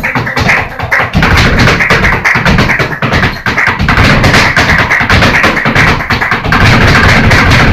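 Flamenco alegrías: rapid zapateado footwork, the dancer's shoes striking a wooden stage in fast runs of heel and toe beats, over hand clapping (palmas) and flamenco guitar.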